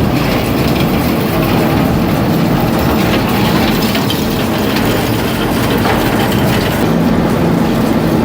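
Heavy wood-shredding machine grinding and chipping wood: a loud, dense, steady grinding with scattered cracks of splitting wood.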